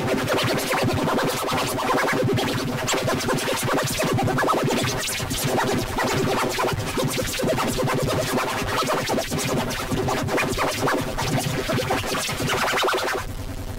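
Loud electronic-sounding music, chopped into rapid stuttering, scratch-like fragments.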